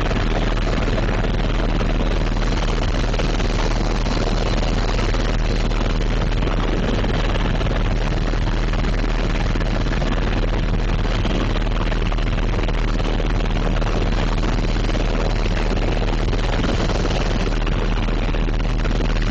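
Helicopter in flight heard from inside the cabin: steady, loud rotor and engine noise with a deep constant hum, unchanging throughout.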